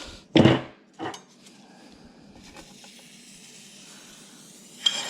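Metal clattering as a freshly soldered ring and metal tools are handled on the soldering bench: a loud clank about half a second in, a smaller one a second in, and another near the end, with a faint steady hiss between them.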